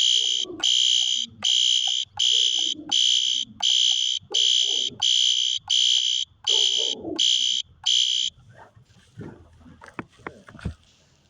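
System Sensor SpectrAlert Advance fire alarm horn on its coded, low-volume setting, sounding march-time: a harsh horn tone pulsing on and off at an even beat of nearly two a second. It stops about eight seconds in.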